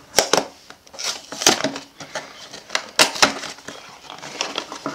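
A cardboard Mystery Minis blind box being torn open by hand: a series of short, sharp rips and crackles of card. The loudest come near the start and around the middle.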